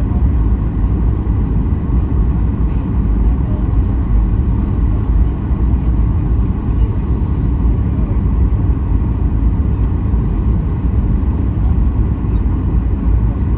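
Steady low rumble of engine and airflow noise inside the cabin of a Boeing 737 MAX 8 airliner on its landing approach, with no sudden knocks or changes.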